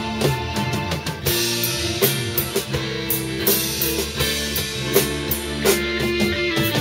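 Live band music: strummed guitars and electric guitar over a drum kit keeping a steady beat.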